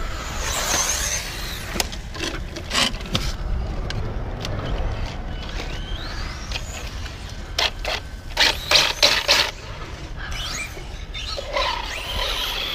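Electric RC buggy being handled: a series of sharp clicks and knocks as the car is picked up by its wing and set down on the asphalt. Near the end the buggy's electric motor whines, rising in pitch as the car pulls away.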